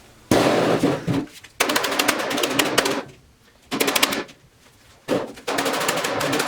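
Metal tool box drawer and slide hardware being worked: repeated bursts of rapid metallic clicking and rattling, each lasting about a second, with short pauses between them.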